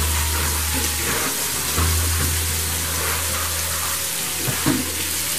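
Flour-dredged snapper pieces frying in hot oil in a pan: a steady sizzle.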